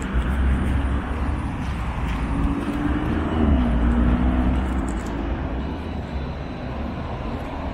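Steady city street traffic noise with a low rumble from passing motor vehicles. In the middle, one vehicle's engine note stands out and drops in pitch, then levels off.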